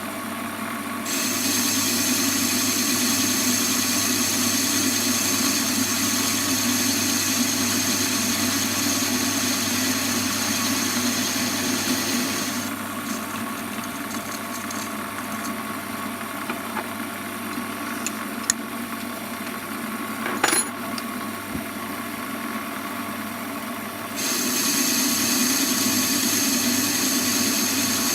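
Warco metal lathe running steadily while turning a part down to thickness. A higher hiss joins about a second in, drops out about halfway and comes back near the end, with a few sharp clicks in the quieter stretch.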